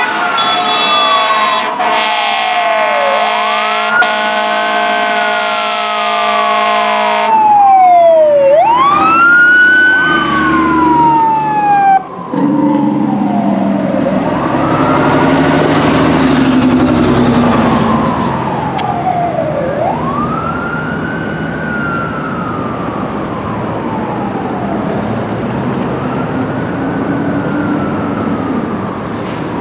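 Fire apparatus air horns blasting in one long held chord over a wailing siren, the horns cutting off about seven seconds in. The siren keeps wailing in slow rise-and-fall cycles, with a second siren sweeping faster for a few seconds and a diesel engine rumbling as the rigs pass, then grows gradually fainter as they move away.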